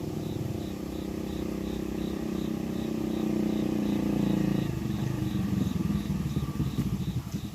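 Small engine running steadily, then dropping to a slow idle with an even chugging pulse about two-thirds of the way in.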